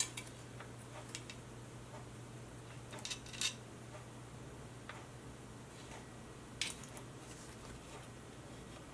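Small parts of an LED light strip being handled and fitted together: a few light clicks and taps, a cluster about three seconds in and another near seven seconds, over a faint steady low hum.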